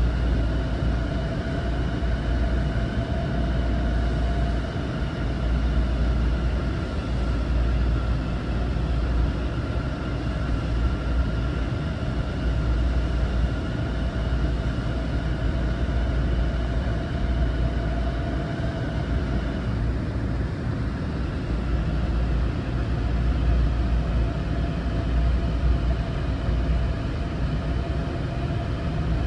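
Long Island Rail Road M9 electric multiple-unit train running steadily, heard from on board: a continuous low rumble of wheels on rail with a steady electric whine at a few fixed pitches from the traction drive.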